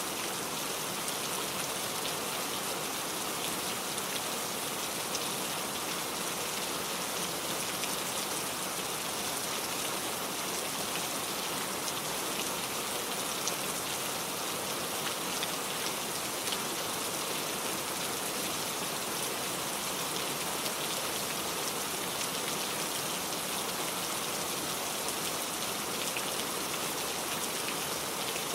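Heavy rain falling steadily: a dense, even hiss of rain on a surface, sprinkled with tiny ticks of individual drops.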